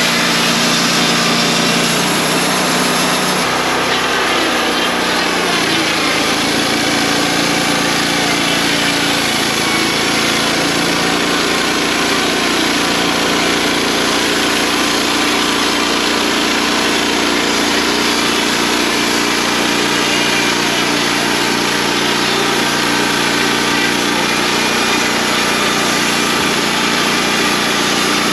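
Wood-Mizer LT35 portable band sawmill running steadily as it mills a white pine log, its engine note shifting about three and a half seconds in and then holding.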